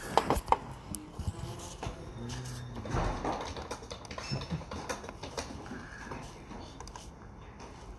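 Scattered sharp clicks and handling knocks against a low background hum, with a faint murmur of voices, busiest in the first half-second.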